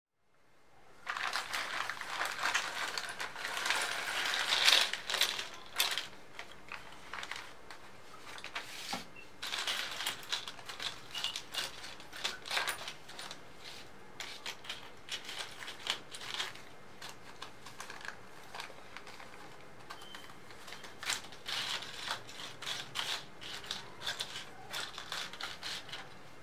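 Small electronic components and their plastic bags being shuffled and spread by hand across a tabletop: a continuous run of light clicks, taps and rustles, starting about a second in.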